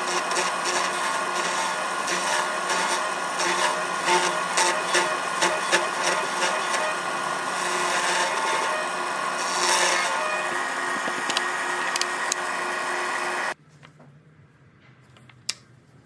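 Hand tools working wood: continuous scraping and rasping with irregular sharp knocks, stopping abruptly about thirteen seconds in, followed by a few faint clicks.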